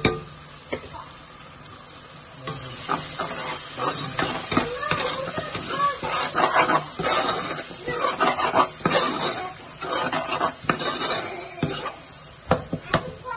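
A metal spoon stirs ground spices into onions frying in oil in a metal pot, scraping and knocking against the pot while the oil sizzles. The stirring starts about two and a half seconds in, and a few sharp taps of the spoon come near the end.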